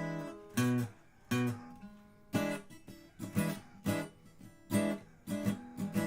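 Acoustic guitar strumming chords, about two strokes a second, each chord ringing on between strokes.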